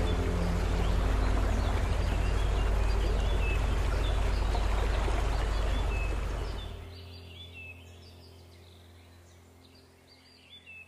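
Outdoor nature ambience: a steady rushing noise with a low rumble, and small birds chirping over it. The rushing fades out about two-thirds of the way through, leaving only faint bird chirps.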